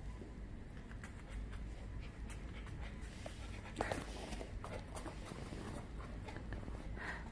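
Samoyed puppy moving about and playing with its toys: scattered light clicks and taps, with the loudest knock about four seconds in.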